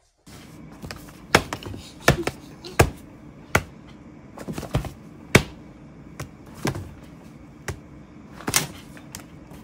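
More than a dozen sharp taps and slaps of a hand on a stack of paper notebooks, at an uneven pace, over a faint steady hum.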